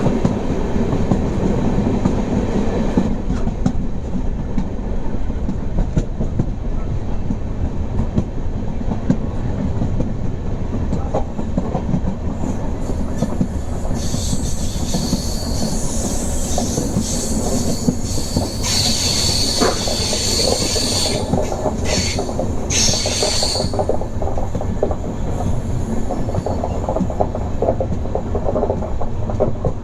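Passenger train coaches running on the rails: a steady rumble with the clatter of wheels over rail joints. From about the middle, for roughly ten seconds, the wheels squeal at a high pitch as the train takes a curve, loudest a few seconds before it fades.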